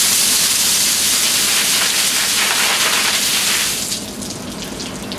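A bucket of ice water dumped over a person: a loud gushing splash of water lasting about four seconds, then tapering off into dripping.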